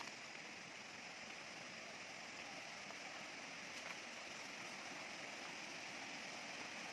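Steady rushing of a shallow, rocky river, growing slightly louder near the end.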